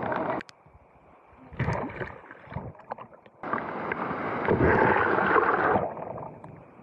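Sea waves breaking and splashing around people standing in rough surf, heard close to the water. Brief splashes in the first two seconds, then a big wave rushes through about three and a half seconds in, lasting a couple of seconds before it fades.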